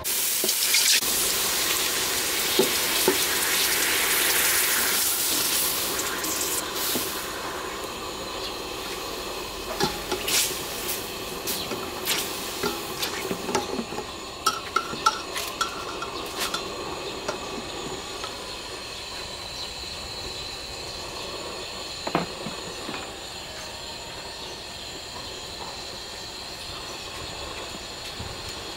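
Coconut milk sizzling in a hot stainless steel pot, loud at first and easing off over the first several seconds. A metal ladle stirs it, clinking against the pot many times in the middle of the stretch, and the milk then keeps up a steady sizzle as it heats.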